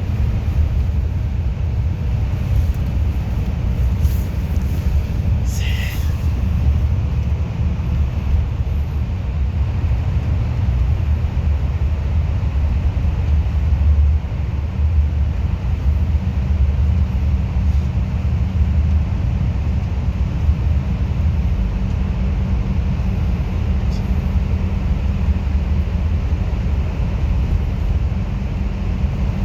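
Bus engine and road noise heard inside the moving bus's cabin: a steady low rumble, with a brief high chirp about six seconds in.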